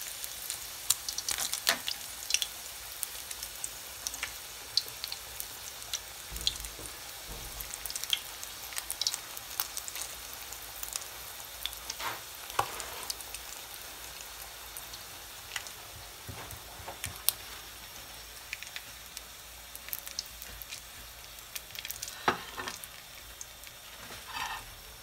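Börek of yufka pastry filled with kokoreç frying in hot oil in a pan: a steady sizzle with frequent sharp pops and crackles.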